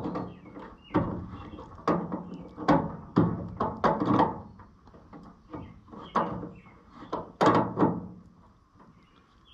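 Irregular clicks and knocks as wires and terminals are handled and fitted at the back of a tractor's instrument panel, dying away near the end.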